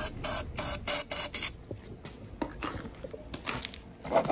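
Aerosol starter fluid sprayed in several short hissing bursts into a lawn mower's carburettor intake, priming the engine to help it start. The spraying stops about a second and a half in.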